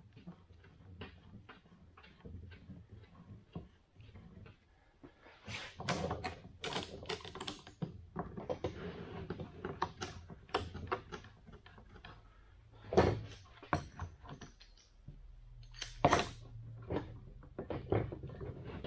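Woodworking clamps being handled and tightened on a steam-bent wooden frame held to a form: a series of small clicks and clacks, getting louder about five seconds in, with sharper knocks of clamp parts against the wood every few seconds.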